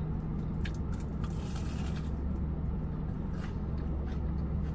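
Chewing and crunching on a potato-coated mozzarella corn dog, with scattered short mouth clicks and a brief crunchy hiss a little over a second in. Under it, the steady low hum of the car.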